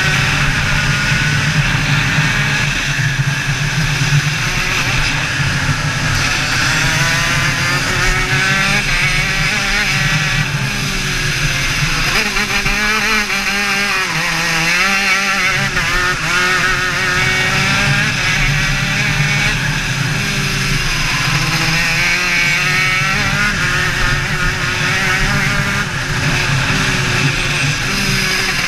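TM KZ 125cc two-stroke shifter kart engine running at race pace, its revs climbing and falling again and again through the lap.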